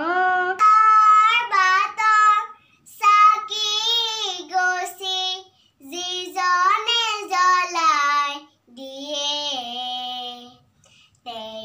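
A young girl singing solo without accompaniment, in short phrases with some long held notes. About six seconds in, a different young girl's voice takes up the singing.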